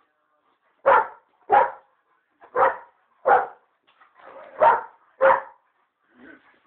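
Rottweiler barking in play: six short, loud barks, coming in rough pairs.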